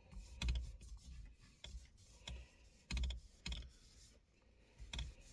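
A cloth wiping and scrubbing degreaser over a worn leather steering wheel: irregular short rubbing strokes with a clicky, rustling texture, about one or two a second.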